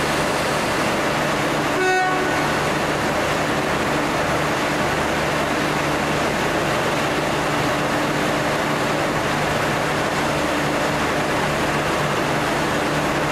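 V/Line N Class diesel locomotive's two-stroke V12 engine running with a steady, loud drone. A short horn toot sounds about two seconds in.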